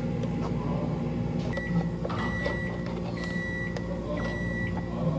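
An electronic appliance beeping four times, each beep about half a second long and roughly a second apart, over a steady low machine hum.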